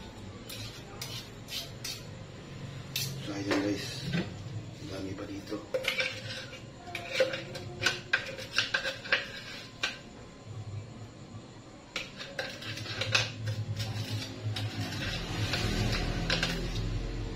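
Metal kitchenware clinking and scraping: a stainless steel container and utensils knocking together as a sticky nut mixture is emptied out, with many sharp clinks and a low rumble near the end.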